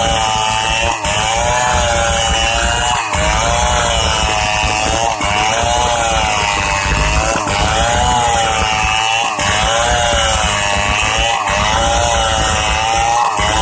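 STIHL 070 two-stroke chainsaw running at full revs while cutting through pine timber. Its pitch wavers up and down as the load changes, with short dips about every two seconds.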